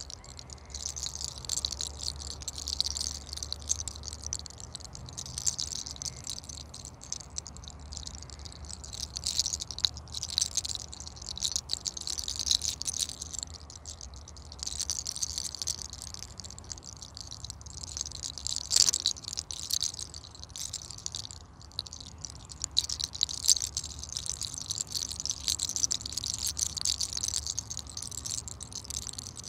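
Close, crackling rustle of a lock of hair being twisted between the fingers and pulled, a dense run of fine crackles with a sharper snap about 19 seconds in. In this hair-cracking practice the crackle is taken as the sign that 'sun' heat is being drawn out of the head.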